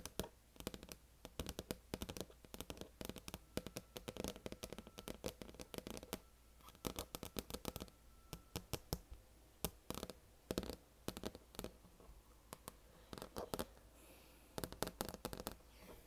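Long acrylic fingernails tapping rapidly and irregularly on the grooved surface and label of a vinyl LP record, in quick clicks.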